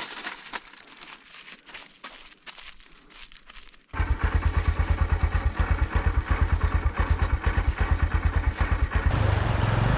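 Aluminium foil crinkling under hands for about four seconds. Then, after a sudden jump in loudness, a Honda Dream Yuga motorcycle's 110 cc single-cylinder engine idling close to its exhaust, with a steady, fast, even pulsing. Near the end the engine sound turns smoother and steadier.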